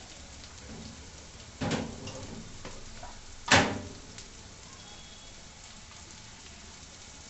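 Chopped onions with coriander leaves and green chillies frying in oil in a nonstick kadai: a steady sizzle. Two sudden knocks cut through it about two seconds apart, the second louder.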